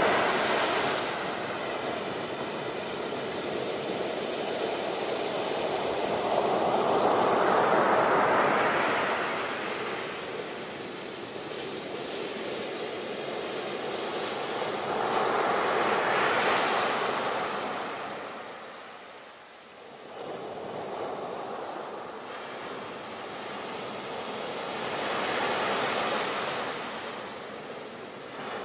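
Muddy floodwater rushing in a fast torrent, a steady noise of churning water that swells and fades several times, dipping briefly about two-thirds of the way through.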